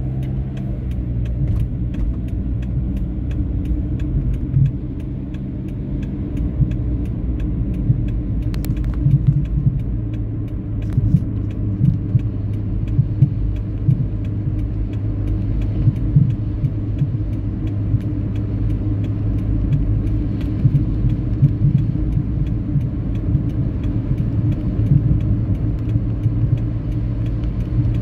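Car driving, heard from inside the cabin: a steady low engine and road rumble with frequent small knocks and rattles.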